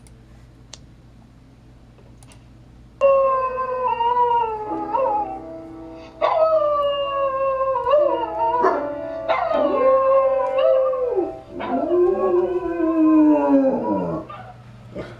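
A pet dog howling along with a video of a dog howling at a piano, which is playing on a computer: four long howls that slide down in pitch, with held piano notes underneath.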